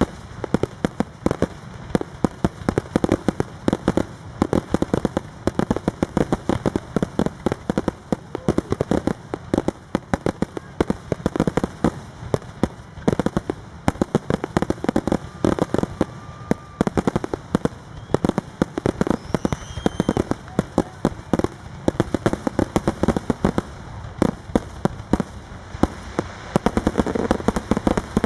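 Fireworks finale: a dense barrage of aerial shells bursting, many bangs a second without a pause.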